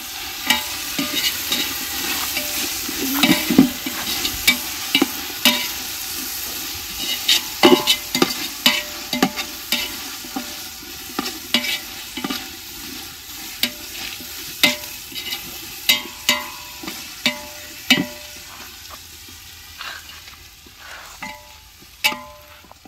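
Biryani masala sizzling as it fries in a pot while a ladle stirs it, with irregular scrapes and knocks against the pot; the sizzle dies down over the last few seconds.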